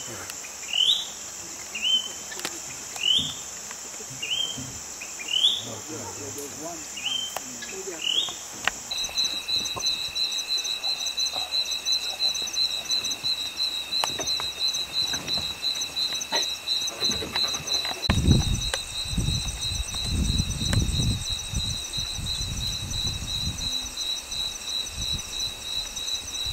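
Night chorus of crickets and other insects. For the first third a short rising call repeats about seven times, roughly once a second, over a steady high insect hum. Then a steady pulsing cricket trill takes over, and a low rumble joins about two-thirds of the way in.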